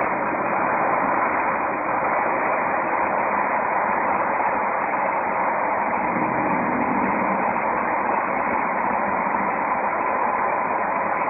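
Jeep SRT8's Hemi V8 with its exhaust resonators deleted, cruising steadily: a constant rush of exhaust and road noise, with the exhaust note swelling slightly about six seconds in.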